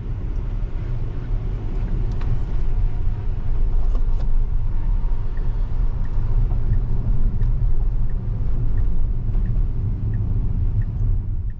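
Low, steady rumble of road and tyre noise inside a Tesla's cabin while driving on wet pavement, with faint regular ticks about every 0.7 s in the second half.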